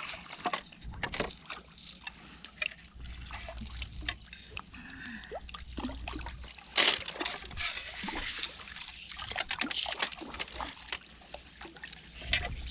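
A gravel-filled sifting screen being shaken in water: water sloshing and trickling through the mesh, with many small clicks of gravel rattling on the screen and a louder rattle about seven seconds in.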